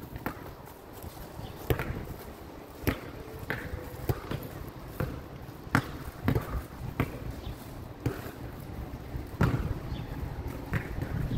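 Basketball bouncing on a hard outdoor court as it is dribbled: about a dozen sharp bounces at an irregular pace.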